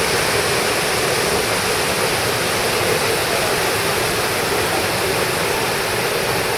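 Steady, loud rush of water from a waterfall and fast-flowing river.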